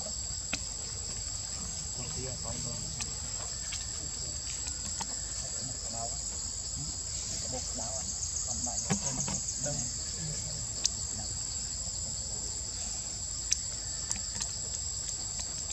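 Steady high-pitched chorus of insects, with a short pulsing stretch about halfway through and a few sharp ticks.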